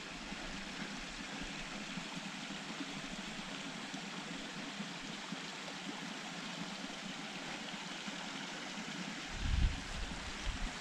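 Mountain brook rushing steadily, with a brief low bump about nine seconds in.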